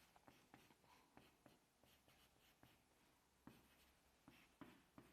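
Faint writing sounds: short, irregular taps and scratches of a pen or chalk, barely above room tone.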